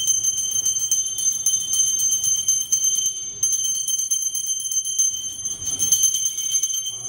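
Small brass puja hand bell rung rapidly and continuously for the worship, its clapper striking many times a second over a bright, high, steady ring. The ringing breaks briefly about three seconds in, then carries on.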